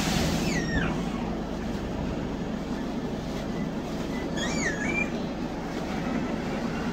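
Dennis Dart SLF single-deck bus's diesel engine idling with a steady low drone, heard from inside the passenger saloon; the bus has a blown exhaust. A brief warbling whistle-like tone sounds about four and a half seconds in.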